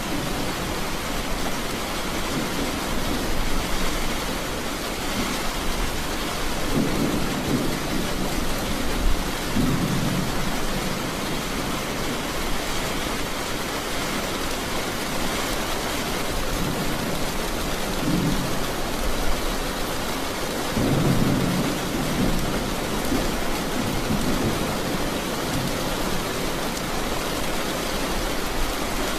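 Steady rain falling, with about four low rumbles of thunder rolling through it.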